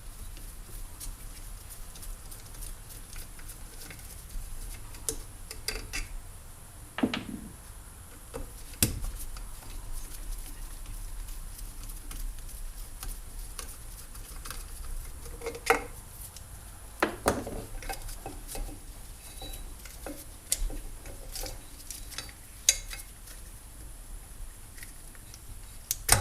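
Metal parts and tools of a trolling motor's lower unit being handled during disassembly: scattered clinks and knocks at irregular intervals, a handful of them louder.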